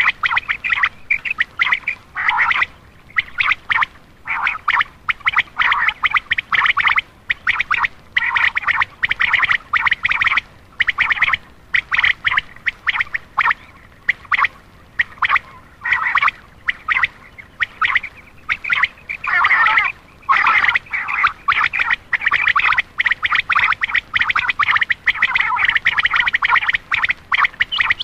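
Common quail calling: quick runs of sharp, chattering high notes, repeated over and over with short pauses between the runs. This is a recorded quail call played to lure male quail.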